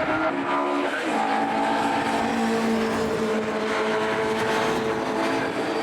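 Classic touring car engines running hard at racing speed. The engine note drops about a second in, then holds steady.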